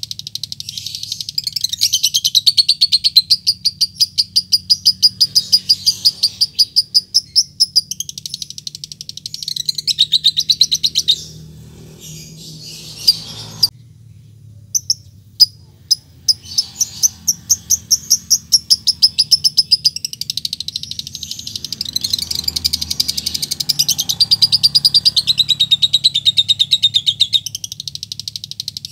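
Fischer's lovebird giving long runs of very rapid, high-pitched chattering calls: the long 'ngekek' trill. About halfway through it breaks off into a pause with a few single chirps, then the fast chatter resumes.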